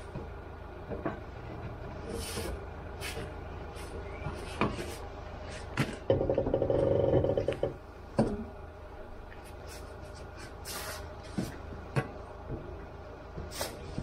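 Metal knocks and clanks from a wheel towing dolly and its lifting bar as it is levered up under a car's rear wheel, with a louder rattling lasting about a second and a half about six seconds in. A steady low engine hum runs underneath.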